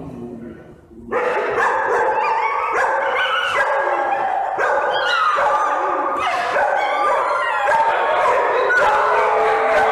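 Several dogs howling and yipping together. The chorus starts loud about a second in, with overlapping, wavering howls broken by short yips.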